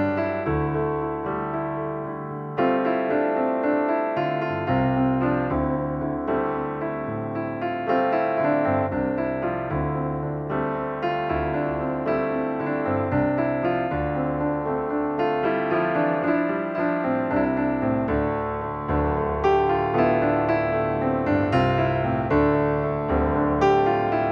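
Background music played on piano: a steady flow of notes and chords.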